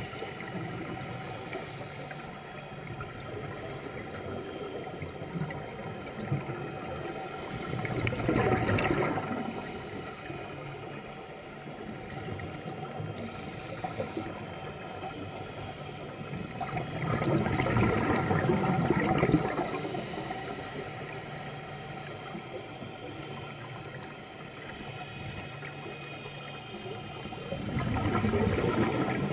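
Scuba diver's exhaled bubbles bubbling from the regulator close to the microphone, three bursts about ten seconds apart, over a steady underwater hiss and hum.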